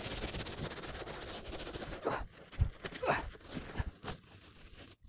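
Plastic wrapping and packing rustling and scraping as a heavy equatorial telescope mount is hauled out of its shipping box, then a few strained breaths of effort and a soft knock about two and a half seconds in.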